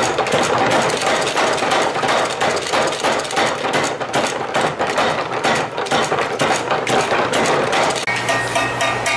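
Rapid hammer blows on a red-hot steel blade on an anvil, several strikes a second in a steady run. Music comes in near the end.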